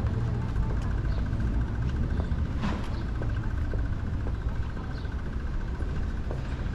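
City street ambience: a steady low rumble of road traffic, with a faint, fast-pulsing high tone running through it and a few light ticks.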